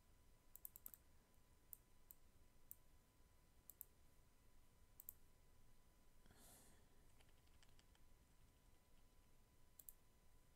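Faint computer mouse clicks, about a dozen, with a quick run of several about half a second in and single or paired clicks spread through the rest. A short, soft rush of noise, like a breath, comes a little past halfway.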